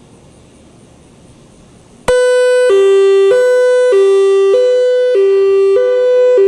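Whelen WPS-3000 electronic storm siren starting abruptly about two seconds in on its hi-lo signal: two tones, high then low, alternating evenly, each held about half a second.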